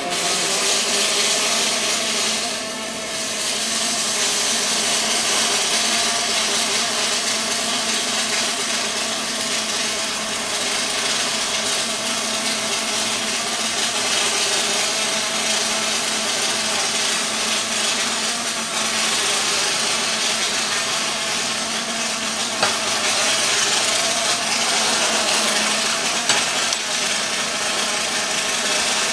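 OTC industrial welding robot's pulsed MIG arc laying a weld along a steel beam: a steady buzz, dipping briefly about three seconds in.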